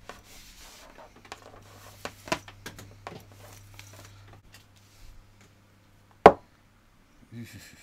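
Vacuum cleaner power cable being pulled through a cloth to wipe it clean: a soft rubbing, several light clicks and knocks, and one sharp, loud knock about six seconds in.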